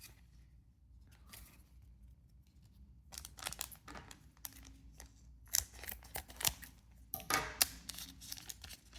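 Foil trading-card booster pack crinkling and tearing as it is handled and opened, in a run of sharp crackles that starts about three seconds in and is loudest past the middle.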